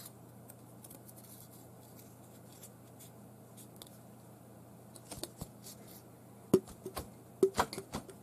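Broken fishing rod sections handled at the bench during an epoxy repair: faint scattered ticks, then a cluster of sharp clicks and light knocks in the last few seconds, over a steady low hum.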